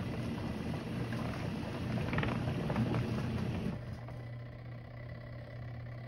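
Intexca mini portable washing machine running its wash cycle: a steady low motor hum with water and clothes churning in the drum. About two-thirds of the way in the churning drops away, leaving a quieter, steady hum.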